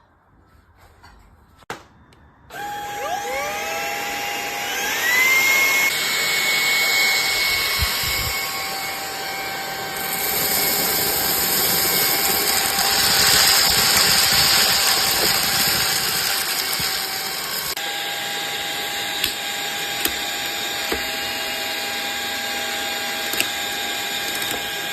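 Cordless handheld stick vacuum cleaner switched on: after a click its motor spins up with a rising whine over about two seconds, then runs steadily with a high whine over a loud rush of air, the tone shifting slightly about two-thirds through.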